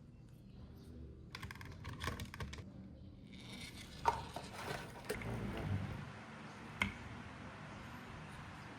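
Small hard objects being handled: a spell of rattling, then scraping with a few sharp clicks.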